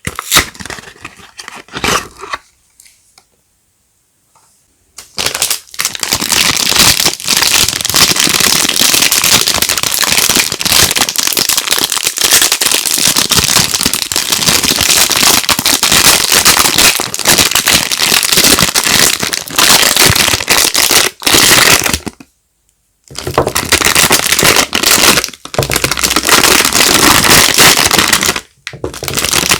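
Soap packaging crinkling and crackling as it is handled and unwrapped, in long loud stretches with a short break about three-quarters of the way through.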